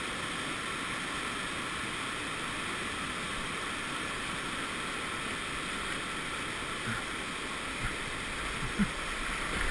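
Steady rush of river water running over rapids, an even hiss with no break.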